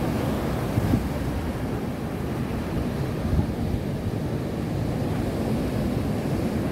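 Steady low rumble of a car on the move: road and wind noise.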